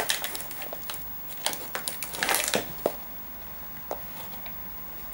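Clear plastic blister tray of a Shopkins multipack crackling and crinkling in a few bursts as it is handled and pried open, with a couple of short sharp clicks.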